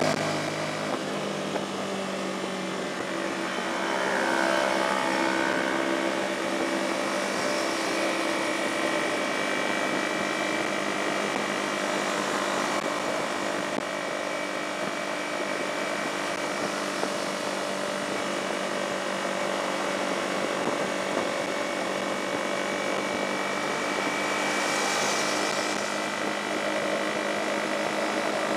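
Motorcycle engine running at a steady cruising speed under wind and road noise, with an even drone that holds one pitch. A brief rush of hiss comes about 25 seconds in.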